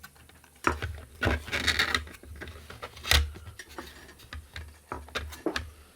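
Hands handling the parts of a 3D-printed plastic monitor case: irregular clicks and knocks, with a rustling scrape between about one and two seconds in and the loudest knock about three seconds in.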